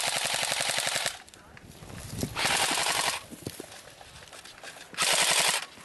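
Airsoft electric rifle firing on full auto: three bursts of rapid shots, the first about a second long at the start, a shorter one about two and a half seconds in, and a brief one near the end.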